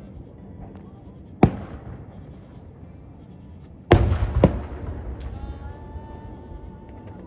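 Fireworks going off: a sharp bang about a second and a half in, then a louder burst with a low rumble about four seconds in and two more bangs after it. Near the end a steady high held tone sounds over the rumble.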